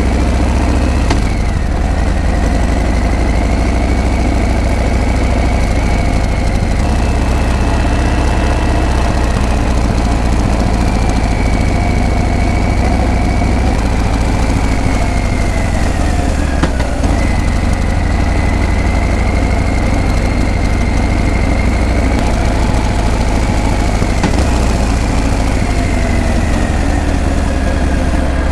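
Harley-Davidson Breakout's V-twin engine and exhaust running steadily, with a deep low rumble.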